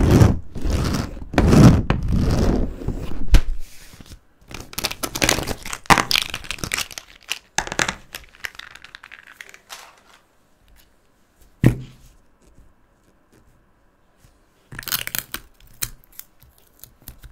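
Hands handling plastic markers on a sheet of paper: bursts of rustling and scraping, loudest in the first few seconds. A single sharp click comes about halfway through. Near the end there is a short scraping run as a tape roller is pressed across the paper.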